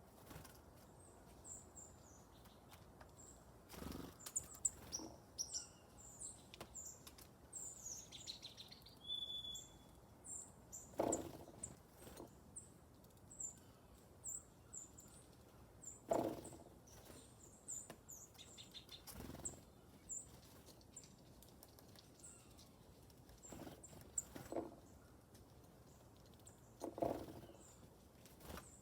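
Small songbirds chirping with many short, high calls and one brief whistled note about a third of the way in. A handful of soft low thumps or flutters are heard now and then.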